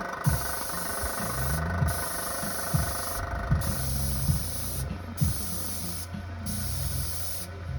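Paint spray gun hissing in repeated passes of about a second each, broken by short pauses as the trigger is released. A motor hums steadily underneath.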